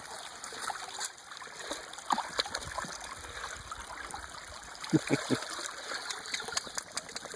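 Small spring-fed headwater creek trickling steadily over stones, with scattered small splashes and a quick cluster of three short sounds about five seconds in.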